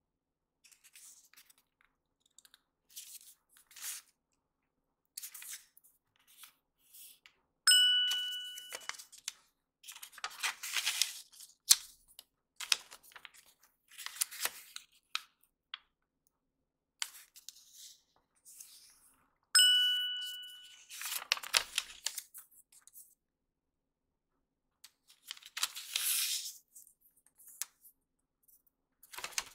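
Origami paper being handled, folded and creased by hand on a tabletop: irregular rustling and crinkling in short spells. Twice a bright bell-like ding sounds suddenly and fades, about a quarter of the way in and again about two thirds in.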